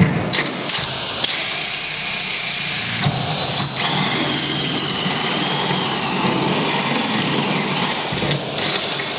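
Cordless drill driving a hole saw through an insulated walk-in freezer wall panel: after a couple of knocks, the drill runs steadily for about seven seconds. Its motor whine drops and wavers about a third of the way in as the saw bites, then stops shortly before the end.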